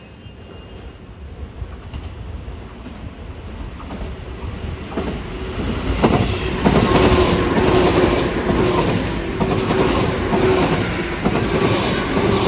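Tobu 10050-series and 10000-series electric multiple unit train approaching and then passing close at speed, wheels clacking over the rail joints. It grows louder over the first half and stays loud as the cars go by, with a steady humming tone underneath.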